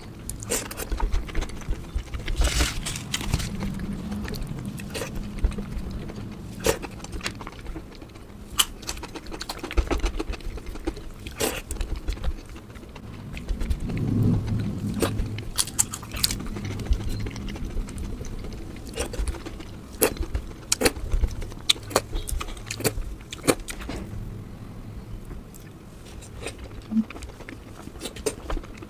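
Close-miked eating sounds: scattered sharp clinks of a utensil or hands against a plate, mixed with chewing.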